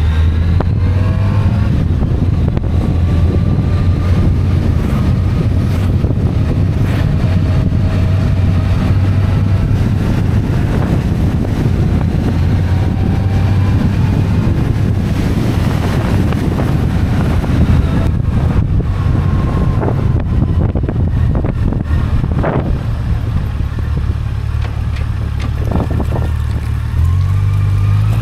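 2018 Yamaha FJR1300's inline-four engine running at steady road speed, with wind rushing over the microphone. Near the end the engine note steps up and rises as the bike accelerates.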